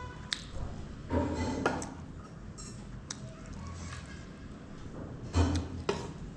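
Eating at a meal: light clinks of dishes and scattered small clicks, with two louder bursts of clatter about a second in and near the end.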